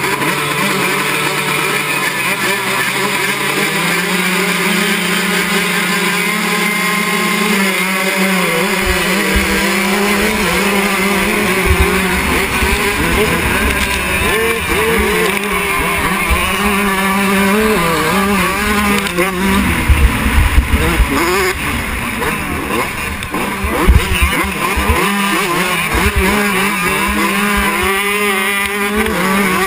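Motocross dirt-bike engines close to the microphone, held at steady revs that step up about four seconds in, then rising and falling in pitch as the bikes race around the dirt track. Heavy low rumbling on the microphone joins in from about nine seconds in.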